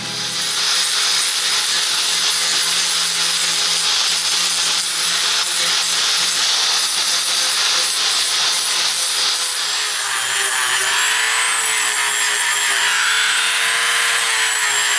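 Angle grinder deburring the edges of plasma-cut holes in a steel plate: a steady, hissing grind. About ten seconds in it gives way to the high-pitched whine of a small corded rotary tool, its pitch wavering as it is loaded.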